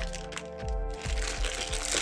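Background music with a steady beat; about halfway through a rough, scratchy crinkling noise joins it.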